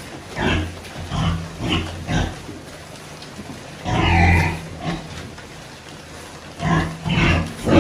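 Young pigs grunting as they feed at a trough. The grunts come short and in quick runs, with one longer, louder call about four seconds in.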